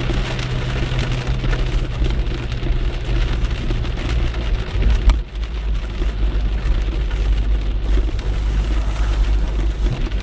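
Heavy rain pelting a moving car, heard from inside through the windscreen, over a low steady hum. About five seconds in there is a short knock, and the hum drops away after it.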